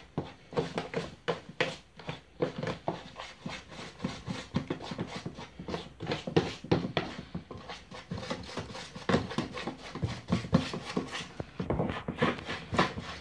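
A spatula stirring and scraping thick white wall-filler paste in a tub: an irregular run of short scrapes and knocks against the tub, several a second. The filler is being worked to a stiff, dough-like paste.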